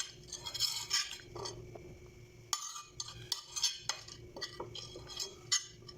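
A spoon clinking and scraping against dishes in a run of short knocks, with a short pause partway through, as soaked glutinous rice is scooped and stirred. A faint steady hum lies underneath.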